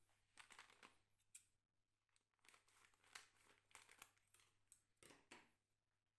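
Faint, intermittent crinkling of a foil coffee packet handled in the hand, with scissors snipping across the top of the foil to cut it open.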